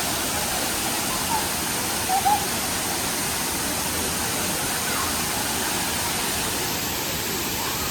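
Waterfall with steady, loud rushing water.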